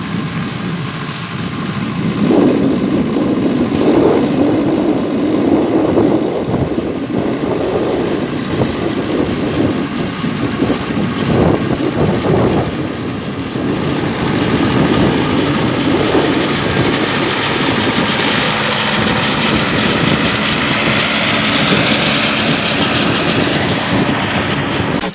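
Tractor engine running under load while its side-mounted rotary mower cuts grass, growing louder as it comes close, with wind buffeting the microphone at times.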